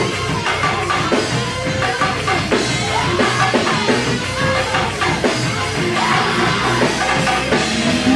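Live church band playing loud gospel praise music on drum kit and other instruments, with voices singing over it.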